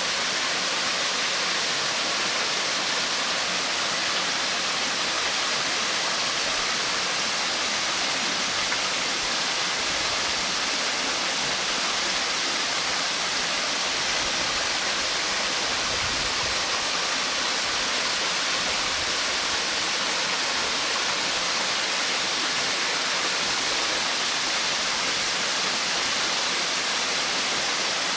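Waterfall pouring: a steady, unbroken rush of falling water, strongest in the hiss range.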